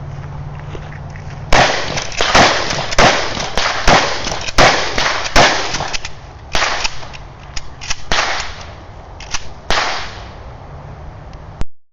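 Gunfire: a quick string of shots begins about a second and a half in, roughly two shots a second, then a short pause and a second, more spaced run of shots.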